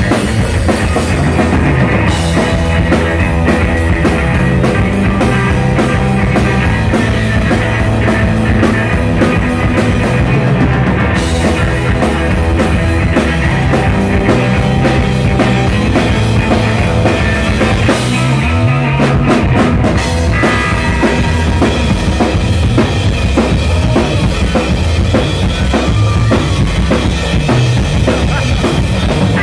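Live rock band playing loud: drum kit with bass drum, snare and cymbals driving a steady beat under electric bass and electric guitar. The cymbals drop out briefly a few times.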